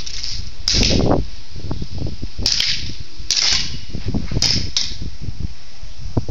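Airsoft guns firing several single shots, sharp pops spaced irregularly about a second apart, over low rumbling and scraping from the handheld phone's microphone.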